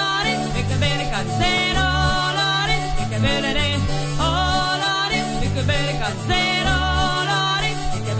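Background song: a voice singing over a steady low drone and repeating bass notes.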